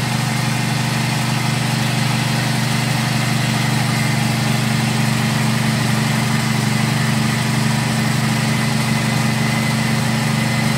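Peanut grinding machine, a pulley-driven mincer-type grinder, running steadily with an even hum while it grinds roasted peanuts into a coarse paste.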